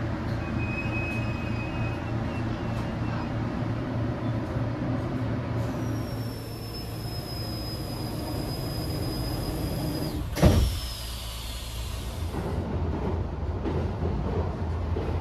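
Train running with a steady low rumble. For several seconds in the middle there is a hiss with a high whine that slowly falls, and a single sharp thud about ten seconds in.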